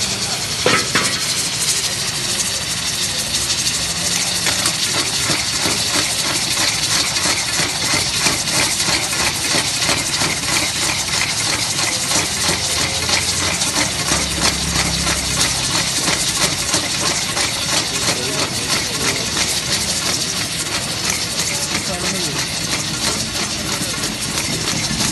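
Chicken pieces frying in hot oil in a wok: a dense, steady sizzle full of small crackles, as a metal ladle stirs them. There is a sharp clink of metal on the wok just under a second in.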